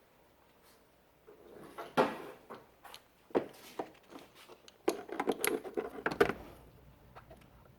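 Sharp metal clicks and short rattles as an AC manifold gauge set's hose adapters are handled and fitted to the air-conditioning service port, with the loudest clicks about two seconds in and near the end.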